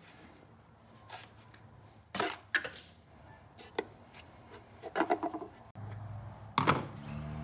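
Hands handling a plastic fuel injector connector and its wiring: a few short clicks and rubs. A steady low hum starts abruptly about six seconds in.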